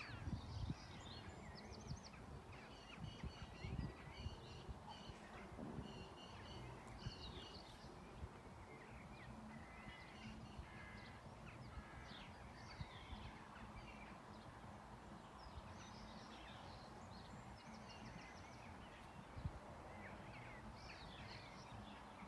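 Faint songbirds chirping and singing, short calls scattered throughout, over a low steady background rumble, with a few soft low thumps in the first several seconds.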